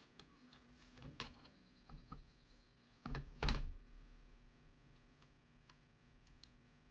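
Scattered light clicks and taps of hard objects being handled, with a louder double knock about three seconds in.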